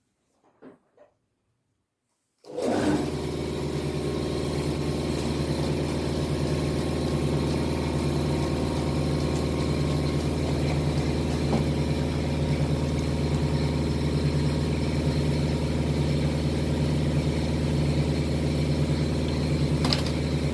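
A few faint clicks, then an electric air compressor starts up suddenly about two and a half seconds in and runs steadily with a low, even hum.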